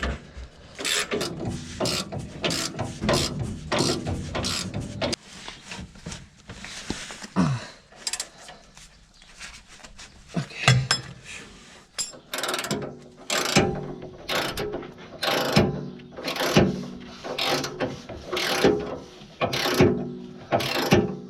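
Ratcheting wrench clicking in repeated short strokes as the nut on a sway bar end link is run down and tightened.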